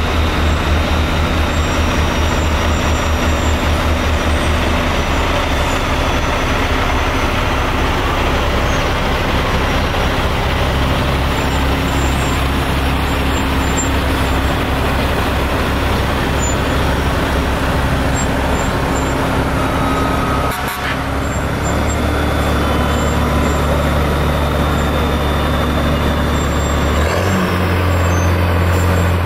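Heavy diesel engine of a fire department tanker truck running loud and steady as the truck rolls past at parade pace, with a deep low hum. Near the end the low tone shifts as the next vehicle comes up.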